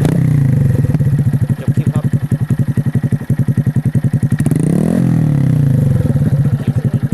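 Honda MSX's single-cylinder four-stroke engine running through an aftermarket can-style exhaust muffler, ticking over with a loud, even exhaust beat. About four and a half seconds in it is revved once, the pitch rising and then falling back to idle.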